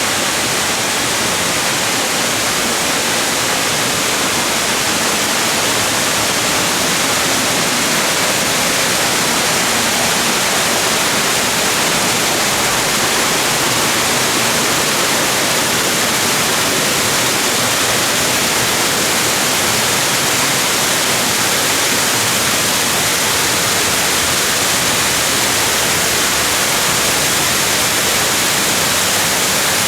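A large waterfall rushing: a loud, steady, unbroken hiss.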